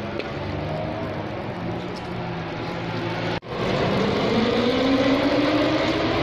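Motorcycle engine running at a steady idle; after an abrupt cut about three and a half seconds in, a louder engine note rises slowly in pitch as it revs up.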